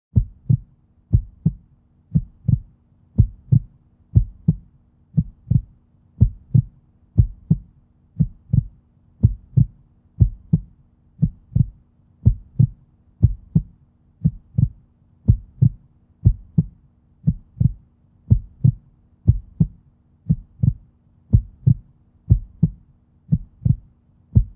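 Heartbeat sound effect: paired low thumps, lub-dub, repeating evenly about once a second over a faint steady low hum.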